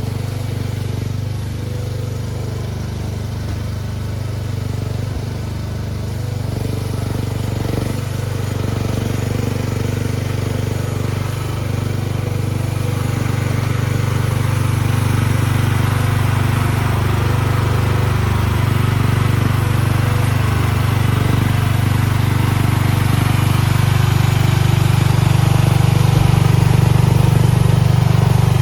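Mini skid steer engine running steadily, slowly growing louder.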